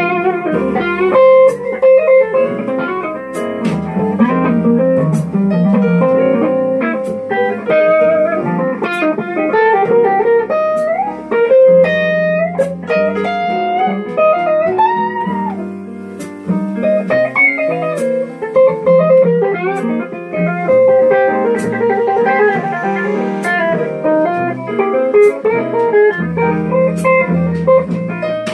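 Solid-body electric guitar played with a pick: a melodic line of single picked notes and chords, with a few bent notes sliding in pitch.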